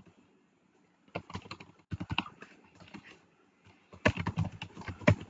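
Typing on a computer keyboard: several bursts of quick key clicks separated by short pauses.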